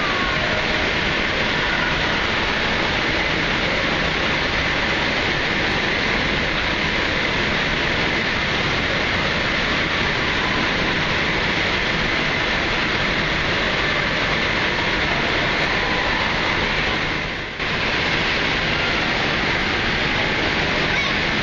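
Steady rushing of water in an indoor water park's lazy river, an even wash of noise echoing in the hall, briefly dropping away once near the end.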